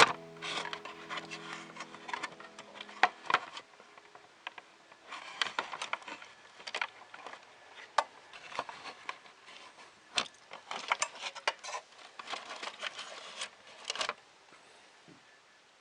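Hands handling small parts on a work surface: irregular clicks, taps and light rattles, with a brief lull about four seconds in and another near the end.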